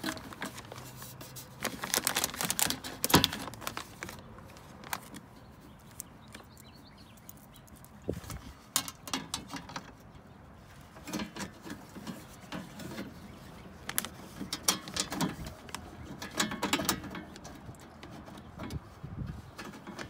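Handling noise as a door access panel is fitted back into a car's inner door: scattered clicks, knocks and rustling, with a sharp click about three seconds in.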